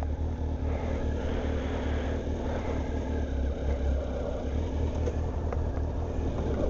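Motorcycle engine running steadily as the bike rolls away at low speed, with a steady hiss of wind and tyres on the wet road over it.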